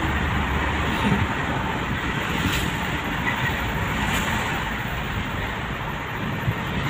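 Steady road and engine noise inside a moving car's cabin, with two short clicks partway through.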